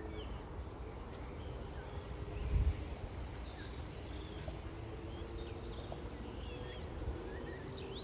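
Birds chirping outdoors: many short, quick rising and falling calls over a steady low rumble, which swells into a brief thump about two and a half seconds in.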